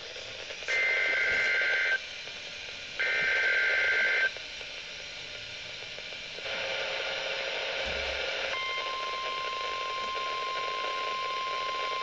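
NOAA Weather Radio test heard through a weather-alert receiver's speaker. Two data bursts of the SAME header, each about a second long and two steady tones at once, come a second apart. After a few seconds of hiss and static, the steady 1050 Hz warning alarm tone starts about nine seconds in and holds.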